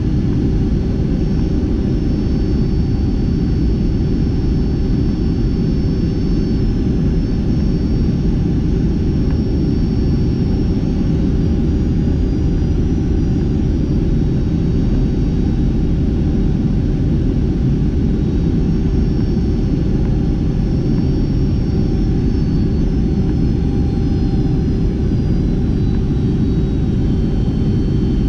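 Steady cabin roar of a Boeing 757-200 on final approach, heard from a window seat beside the engine. Faint high whining tones drift slowly up and down in pitch over it.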